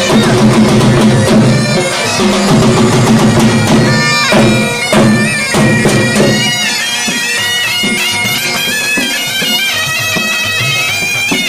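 Jhumar dance music: a loud reedy wind instrument plays a wavering, ornamented melody over a steady drone, with dhol drumming beneath it.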